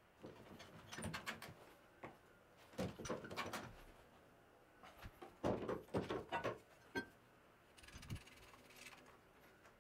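Several short clusters of knocks, clicks and rattles from steel plate parts and a quick-grip bar clamp being handled and clamped on a workbench.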